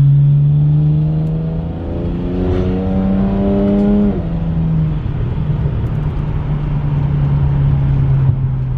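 BMW 335i's N54 twin-turbo inline-six heard from inside the cabin while driving: a steady drone, then the engine note rises for about two seconds under acceleration and drops abruptly about four seconds in, settling back into a steady drone.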